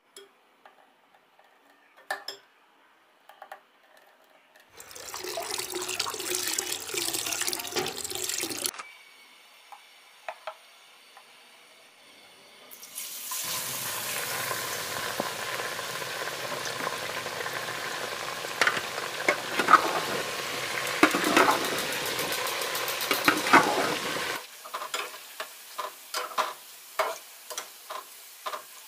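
Gram-flour batter dropping through a mesh sieve into hot oil and sizzling as the boondi deep-fry, in two spells, the second longer, with sharp clinks of the sieve and scoop. Near the end a spatula taps against the pan in a quick run of knocks as the frying drops are stirred.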